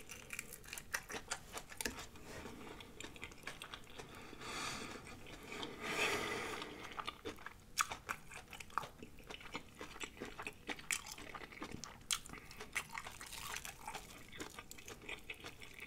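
Close-miked crunching and chewing of breaded deep-fried shrimp: a dense run of sharp crunches, with a longer, softer rushing sound about five to seven seconds in.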